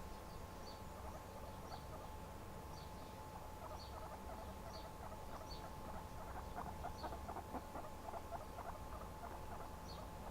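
Guinea pig making faint, short high squeaks about once a second, with a run of quick soft clicks in the middle.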